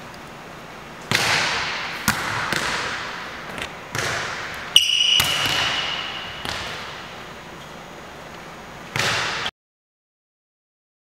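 Volleyball being struck again and again, hand hits and forearm passes, each smack ringing on in the echo of a gymnasium hall; a short high squeak about five seconds in. The sound cuts out to silence about a second and a half before the end.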